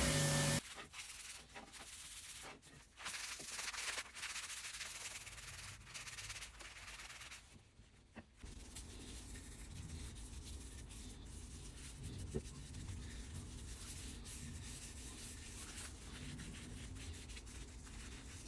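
Oak wood being sanded by hand, sandpaper rubbing on the wood in a rough hiss with short breaks. A whining power tool cuts off just at the start.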